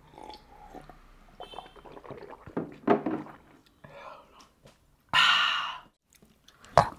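Men gulping water from glass jugs, followed by short eating and handling noises. A loud noisy rush comes about five seconds in and a sharp knock near the end.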